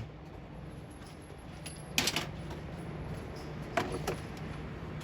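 Cartridges being pushed into a gun magazine by hand: a few sharp metallic clicks, one about two seconds in and two close together near four seconds, over a steady low hum.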